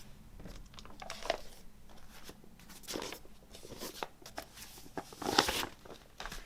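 Paper and plastic packaging of a vinyl record set being handled: a series of short rustles and crinkling scrapes, the longest and loudest about five seconds in.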